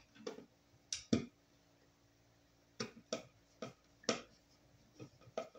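Ground wire and hand tools being worked into the terminal of a metal breaker disconnect box: about a dozen sharp, irregular clicks and taps, with a pause of over a second near the middle.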